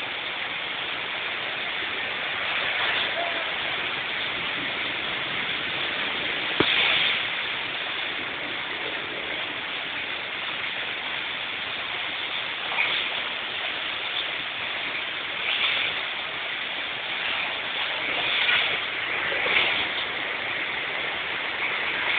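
Heavy rain and rushing floodwater: a steady hiss of water, with a few brief louder swells.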